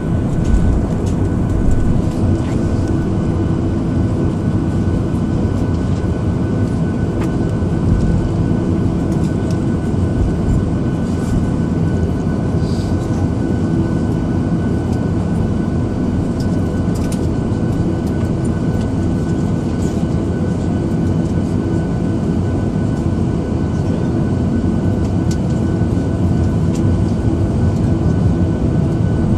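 Cabin noise inside a Boeing 737-700 taxiing: the steady hum of its CFM56-7B jet engines at low thrust, with a steady whine and occasional faint clicks.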